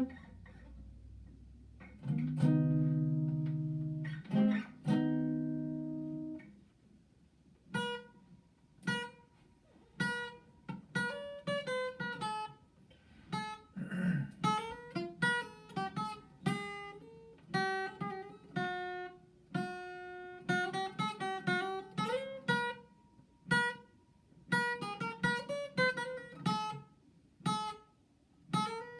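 Acoustic guitar played solo: two strummed chords left to ring, then a melody of single plucked notes and short phrases.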